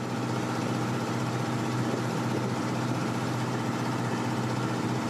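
Small harbour boat's engine running steadily with an even low hum.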